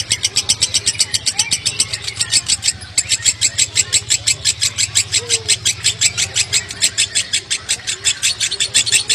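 Fischer's lovebird giving a long 'konslet' ngekek: a rapid, unbroken chatter of sharp high notes at about six or seven a second, tightly spaced, with one brief break about three seconds in.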